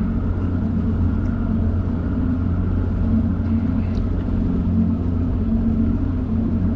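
Boat's outboard motor running at a steady speed, a constant low hum.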